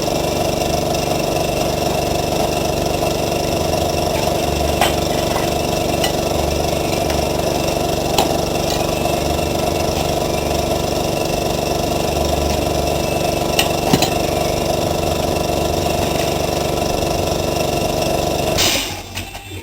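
A small motor running steadily, with a few light metallic clinks over it; it cuts off abruptly near the end.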